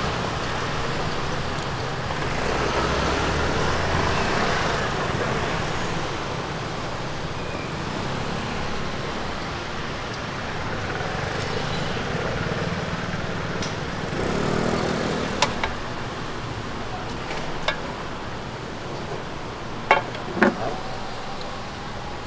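Street ambience: steady traffic noise with a background murmur of voices, and a few short sharp clicks in the last several seconds.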